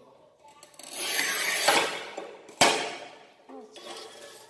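Manual push tile cutter's scoring wheel rasping along a tile for about a second and a half, then one sharp crack about two and a half seconds in as the tile snaps along the score line.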